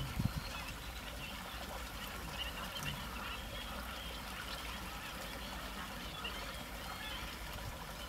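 Quiet wetland ambience: a steady low hiss with many faint, scattered chirps from distant birds. No single call stands out.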